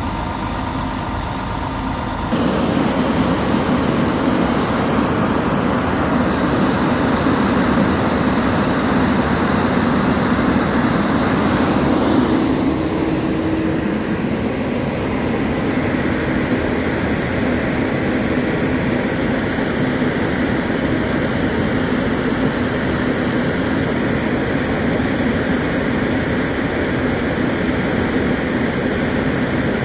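Fire truck's diesel engine running steadily close by, with a constant low hum; it grows louder about two seconds in and the tone shifts slightly around twelve seconds.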